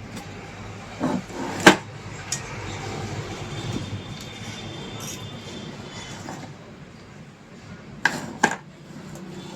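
Hand-work clatter: a few sharp clinks and knocks of hard objects being handled, the loudest about two seconds in and a close pair near the end.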